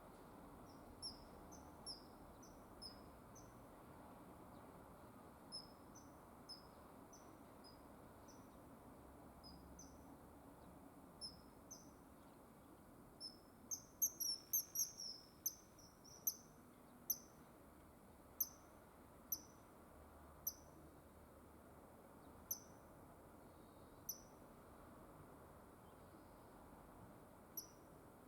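Common kingfisher calling: short, high, shrill notes at intervals of about a second, with a quick flurry of calls about halfway through.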